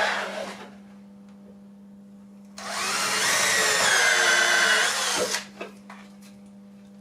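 Cordless drill boring a hole through a wooden slat: a short spurt right at the start, then a steady run of about two and a half seconds that cuts off a little after the middle.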